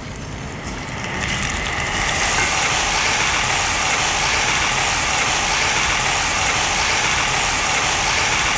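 Marinated fish pieces sizzling in hot oil in a wide pan. The sizzle builds over the first two seconds as the fish goes in, then holds steady.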